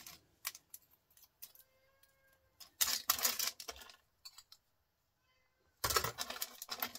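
Small metal and plastic scrap pieces clattering and rattling as hands rake and pick through a pile of them on a metal bench top, in bursts of clicks that are loudest about three seconds in and again near the end. A faint brief tone sounds about two seconds in.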